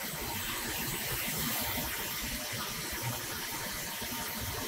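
CNC sawjet gantry traversing along its Y axis under manual jog, its axis drives giving a steady, even, hiss-like whir.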